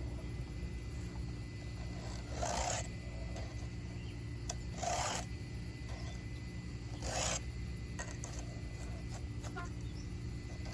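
A chainsaw file pushed through a tooth of the Homelite chainsaw's chain, three rasping strokes about two seconds apart, sharpening the cutter.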